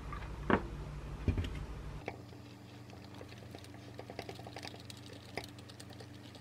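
Two sharp knocks, the loudest sounds, in the first second and a half, then a metal spoon clinking rapidly and lightly against a drinking glass as a protein shake is stirred.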